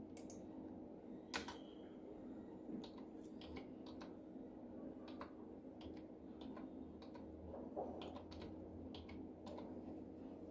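Computer keyboard being typed on: irregular, light key clicks, one sharper click about a second and a half in, over a faint steady hum.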